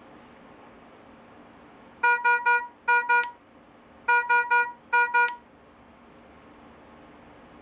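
Philips IntelliVue MP70 patient monitor sounding its high-priority (red) alarm: short beeps in the standard pattern of three then two, played twice, then it stops. One steady mid-pitched tone.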